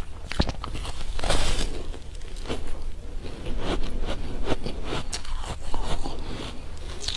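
Close-up crunching bites into a frozen ice cake: a series of sharp crackling crunches, with a longer, denser crunch about a second in.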